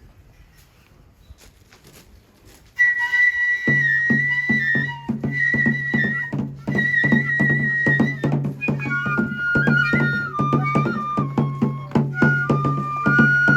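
Japanese shrine festival music of the kagura kind: a high bamboo flute melody comes in about three seconds in, and about a second later drums join with quick, regular strikes over a steady low hum.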